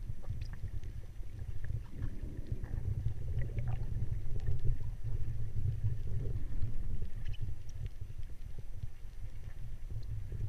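Muffled low rumble of water moving against an underwater camera housing, with scattered faint clicks and ticks.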